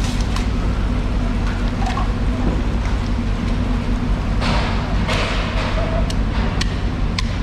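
A steady low mechanical drone, with a stretch of water hissing from a hose a little over four seconds in. Near the end come a few sharp knocks of a large knife chopping at a bluefin tuna's tail.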